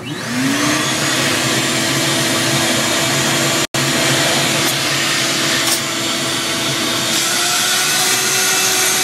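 Vacuum cleaner motor spinning up with a rising whine, then running steadily as it sucks chaff out of a coffee roaster's chaff can. The sound cuts out for an instant a little before the middle.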